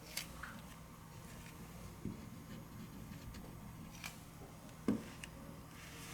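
A few light, sharp clicks and taps, about five spread across a few seconds, of small tools and phone parts being handled on a workbench, over a faint steady hum.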